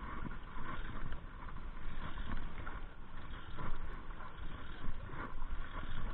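Wind buffeting the microphone over sea water lapping against a small outrigger fishing boat, a steady rumbling wash. A couple of faint clicks sound in the second half.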